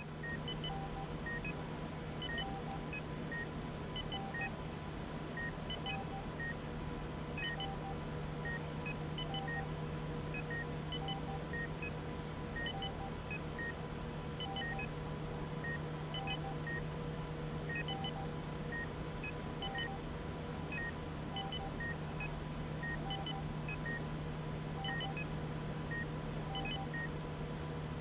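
Hospital hallway ambience: a steady low hum with faint constant tones, over which short electronic beeps at a few different pitches repeat in the same pattern about every second and three-quarters.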